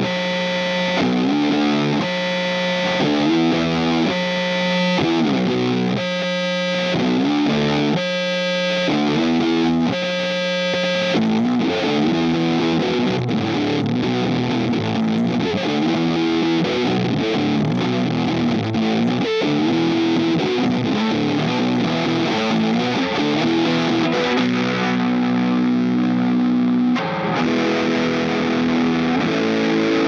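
Electric guitar played through a Greer Amps Gorilla Warfare MKII, a RAT-style distortion/fuzz pedal built on an LM308 chip, into a Strymon Iridium amp simulator: heavily distorted chords and riffs. The playing comes in short phrases with brief stops over the first ten seconds or so, then runs on more continuously.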